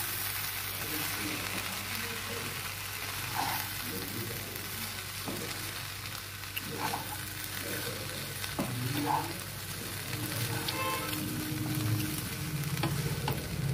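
Spatula stirring and scraping cooked biryani rice around a hot nonstick kadai, with a steady sizzle underneath.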